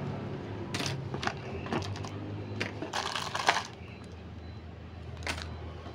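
Clear plastic packaging rustling and crinkling as it is handled, with small clicks of plastic pieces, in short irregular bursts and a quieter stretch for over a second in the second half.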